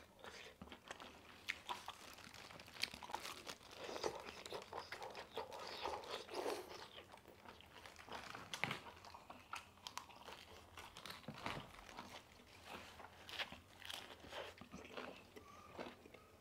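A person chewing and biting food close to the microphone: irregular crunching and wet mouth clicks.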